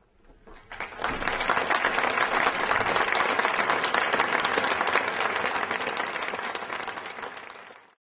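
Audience applauding at the close of a talk: dense clapping that builds up about a second in, holds steady, then fades and cuts off near the end.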